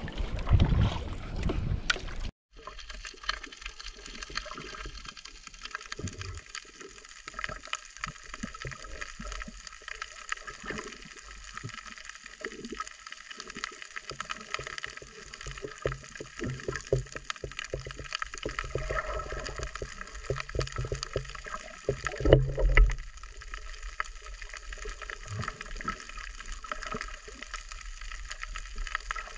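Underwater sound through a diving camera: muffled gurgling water with many faint crackling clicks, and a louder gurgling rush about twenty-two seconds in. The first couple of seconds are wind on the microphone above water, cut off suddenly.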